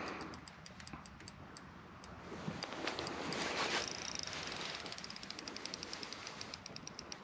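Spinning reel clicking in a rapid, even series of ticks that quickens about halfway through, with a large fish, taken for a sturgeon, on the line. A brief rushing hiss rises and fades around three seconds in.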